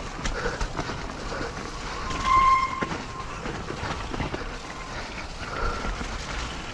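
Mountain bike rolling down a rough, rocky trail: tyres crunching over rocks and roots, with the bike rattling and clattering on the impacts. About two seconds in there is a brief high squeal, the loudest moment.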